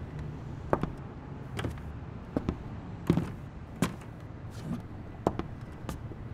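Footsteps on a wooden floor: a string of sharp knocks, about one every three-quarters of a second at first, then further apart, over a low steady hum.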